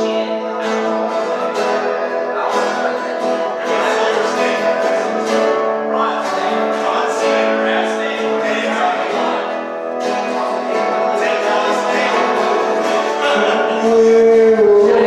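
Live music: an acoustic guitar strummed in a steady rhythm under held chords, louder near the end.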